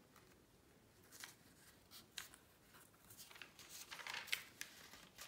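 Thin Bible pages being turned by hand: a few soft paper flicks, then a busier run of rustling as several pages are leafed through about three seconds in.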